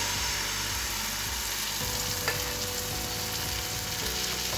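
Flour-and-egg batter sizzling steadily on a hot oiled tawa as a ladle spreads it into a thin round wrap, with one light click about halfway through.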